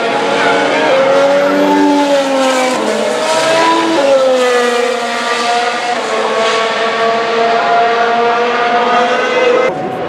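2017 Formula 1 cars' 1.6-litre turbocharged V6 engines at high revs as several cars pass in succession. Their high, overlapping engine notes bend and step in pitch a few times. The sound briefly drops out just before the end.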